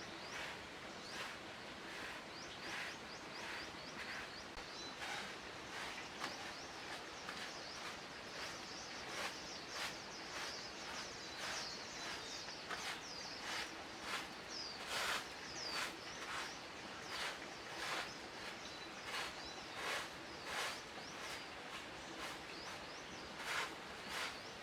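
Irregular rustling and crunching strikes, like steps or handling through dry vegetation, with small birds chirping in short, high calls.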